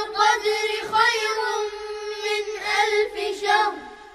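Quranic recitation chanted in a high voice, the melodic tajweed style with long held notes and a few short breaks. It fades away near the end.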